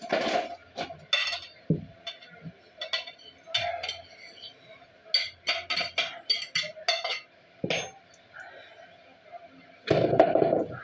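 Dishes, glasses and cutlery clinking and clattering against each other during washing up by hand, in irregular knocks, with a louder, denser clatter near the end.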